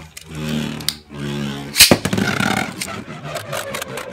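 Beyblade Burst spinning tops whirring and scraping across the plastic floor of the Battle Tower stadium, with one sharp clack about two seconds in.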